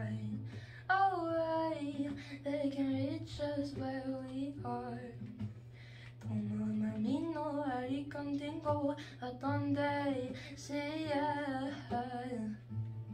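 A woman singing a slow, gentle melody with long held notes, accompanied softly by a Yamaha acoustic guitar.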